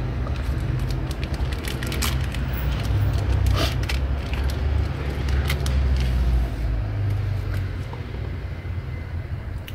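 Clear plastic packaging around a replacement phone display crinkling and crackling as it is unwrapped. Under it runs a steady low rumble, which eases off about six and a half seconds in.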